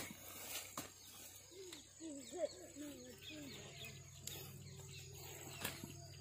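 A short-handled hoe knocking into dry, cloddy soil a few times while digging out an elephant foot yam. A run of short bird calls comes about two to three seconds in.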